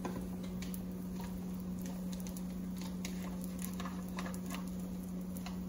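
Egg and bread frying in butter in a stainless steel pan: faint, scattered crackles over a steady low hum.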